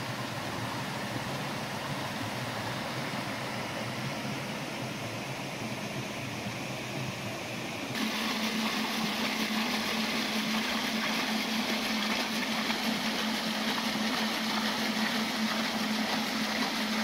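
Creek water rushing and splashing through a micro-hydro intake and over rocks, with a steady hum under it. About eight seconds in the sound cuts abruptly to a louder, brighter rush of water with a steady hum a little higher in pitch.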